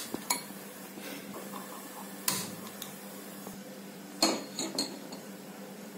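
Kitchen utensils and a pot clinking: a handful of separate knocks spaced irregularly, the loudest about four seconds in, over a steady low hum.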